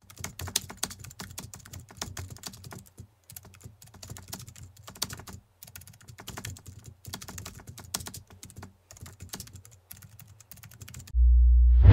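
Keyboard typing sound effect: rapid, irregular keystroke clicks with a few short pauses. About a second before the end, a loud, steady, low bass tone comes in.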